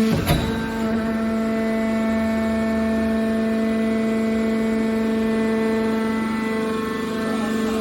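Hydraulic aluminium can baler running with a steady hum, with a sharp knock about a quarter second in.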